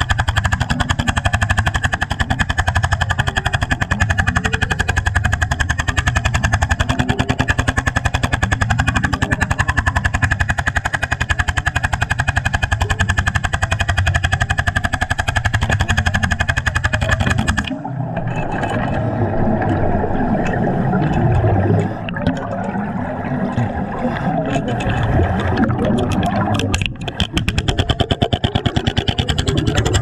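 Underwater jackhammer hammering rapidly and evenly against concrete, heard through the water. It stops just past halfway for about nine seconds, leaving irregular noise, then starts hammering again near the end.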